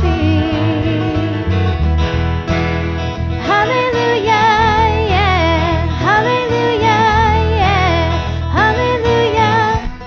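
Music from a worship song: plucked guitar and bass under a melody line that scoops up into held, wavering notes, with no words sung.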